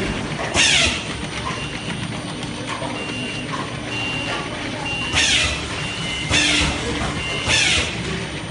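Liquid soap filling and capping machine running with a steady mechanical clatter. Sharp hisses of compressed air from its pneumatic valves come once near the start and three times about a second apart from five seconds on. Faint short high beeps sound about once a second.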